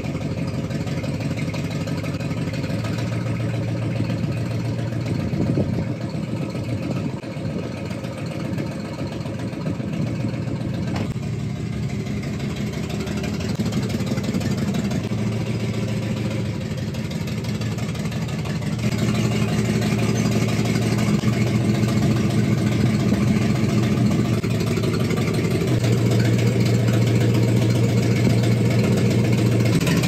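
Lifted Chevrolet dually pickup's engine running at low revs while the truck manoeuvres, its pitch shifting every several seconds and getting somewhat louder in the second half.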